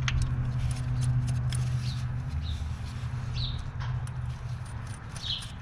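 Workshop background: a steady low hum with scattered light clicks of parts and tools being handled, and a few short high chirps.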